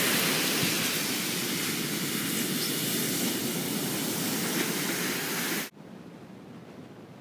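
Ocean surf breaking on a sand beach: a loud, even rushing noise that drops abruptly about three-quarters of the way through to a much quieter wash of surf.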